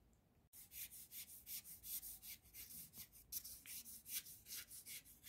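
Watercolour brush scrubbing paint onto paper in quick, faint strokes, about five a second, starting about half a second in.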